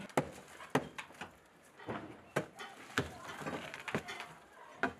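Steel pry bar knocking and levering wooden formwork boards loose from a cast concrete slab edge. About half a dozen sharp knocks come at irregular intervals.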